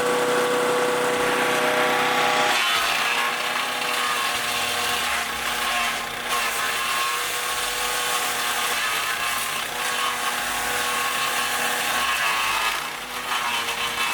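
A wood chipper with a 16 HP engine running steadily while chipping material: a continuous engine hum under a grinding, cutting noise. Its tone shifts about two and a half seconds in.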